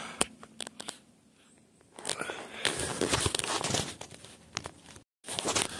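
Rustling and crackling handling noise from a phone being moved about in the hand, with scattered light crunches and clicks. The sound drops out completely for a moment about five seconds in.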